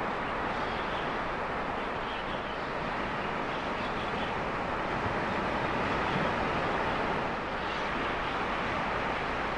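A steady rush of ocean surf breaking on the beach, with wind.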